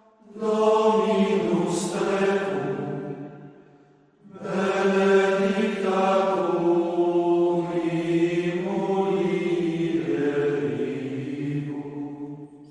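A slow devotional chant sung in two long phrases of held notes, with a short breath-like gap about four seconds in.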